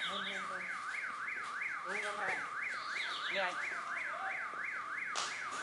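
Electronic alarm siren warbling quickly up and down, about four sweeps a second, the signal that the BB gun game has ended. Faint voices are under it, and a short noisy burst comes near the end.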